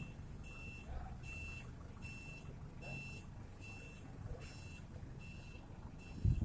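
An electronic warning beeper sounds a steady high beep about every 0.8 seconds over a low machine rumble. A louder low thump comes near the end.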